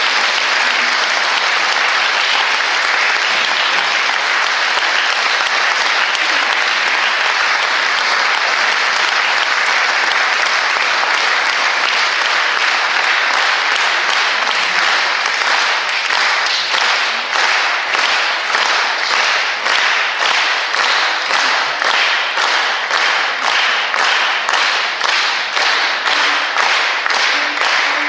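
Audience applause at the end of a choir piece: dense, even clapping that, a bit past halfway, falls into rhythmic unison clapping at about two claps a second.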